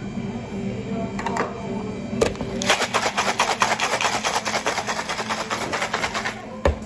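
Barista's drink shaker being shaken hard for a shaken espresso: a rapid, even rattle of many strokes a second. It starts about two and a half seconds in and lasts nearly four seconds, with a sharp knock just before it and another just after.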